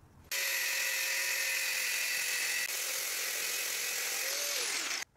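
High-speed electric power tool working metal: a steady high-pitched whine over a hiss. It starts suddenly, its pitch drops near the end, and it cuts off abruptly.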